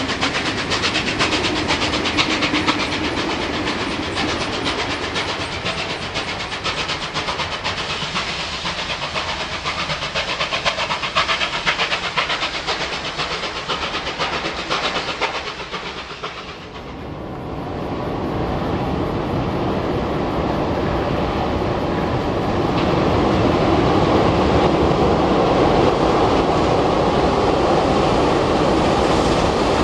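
Passenger carriages of a train hauled by steam locomotive 3830 rolling past, with a rapid clickety-clack of wheels over rail joints that slowly fades as the train draws away. About sixteen seconds in the sound cuts to a louder, steady rumble of the train running.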